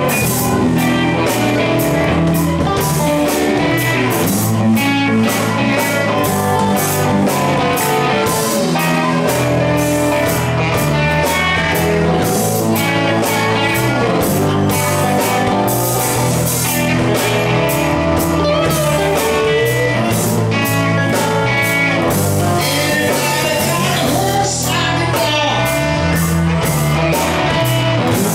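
Live blues-rock band playing: electric and acoustic guitars, electric bass and a drum kit keeping a steady beat, with a singer's voice.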